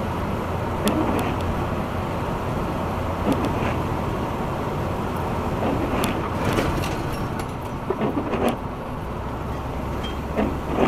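Steady road and drivetrain noise heard inside a motorhome's cabin at highway speed, with scattered sharp clicks and rattles from loose items inside the RV. In the second half the RV brakes hard, slowing from about 58 to 45 mph.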